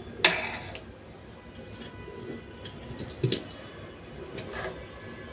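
Small parts of a hair trimmer being handled during repair: two sharp clicks, one just after the start and a softer one about three seconds later, amid faint ticking and scraping.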